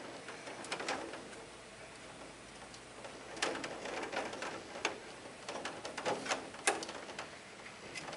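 Hands handling wires and a panel during reassembly: scattered light clicks and small knocks, a few louder taps in the second half, over faint room noise.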